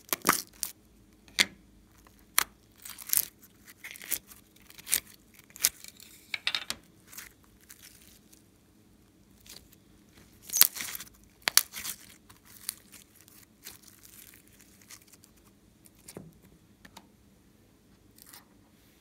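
Hands peeling clay out of a plastic butterfly mold and pulling apart glitter slime: a run of short, sharp crackling and tearing snaps, thick in the first eight seconds and again around ten to twelve seconds in, then only a few scattered ones.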